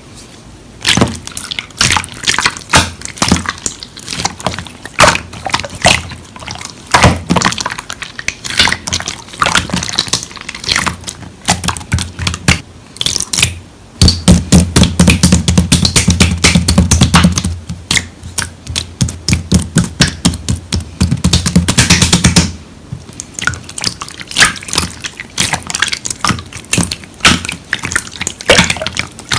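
Slime being squished and poked by hand, a stream of sticky wet clicks and pops, with a faster, denser run of squelching for about eight seconds in the middle.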